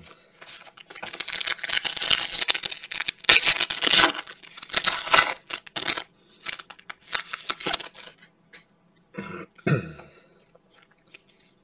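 Foil trading-card pack being torn open and crinkled: a dense crackle of wrapper noise for several seconds, then sparser rustling as the cards are handled.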